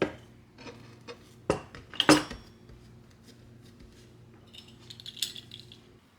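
Kitchen utensils and dishes clinking and knocking: a few sharp knocks, the loudest about two seconds in, then a run of light, high clinks near the end, over a steady low hum that cuts off just before the end.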